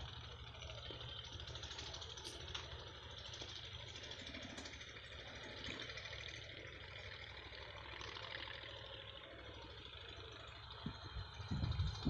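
Faint, steady distant engine rumble under an even hiss, with a few faint ticks and some low thumps near the end.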